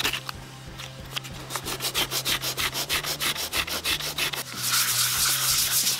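Sandpaper worked by hand over a cured fiberglass-resin patch on a plastic car bumper, levelling the patch with 150 grit: quick rhythmic back-and-forth scratching strokes. They start faint and grow louder, strongest in the last second or so.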